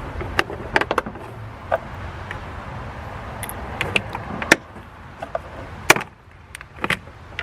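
Scattered light clicks and knocks of small plastic parts being handled at a truck's fuse box, over a steady low hum; two sharper knocks come about four and a half and six seconds in.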